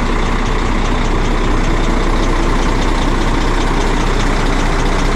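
KamAZ truck's diesel engine idling with a regular, unpleasant knock, several a second, over the steady running. The knock is the sign of an engine failure the driver considers fatal.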